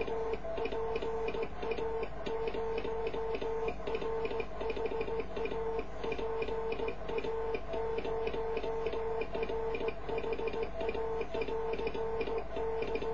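Morse code (CW): a steady mid-pitched beep keyed on and off in dots and dashes, with sharp clicking from the key as it is worked.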